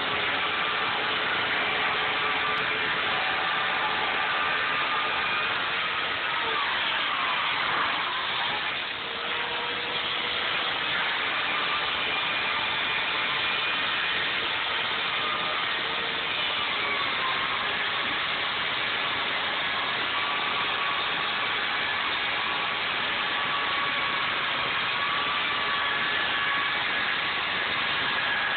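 Electric chainsaw running steadily while carving foam, its motor whine dipping briefly in pitch about eight seconds in and then recovering.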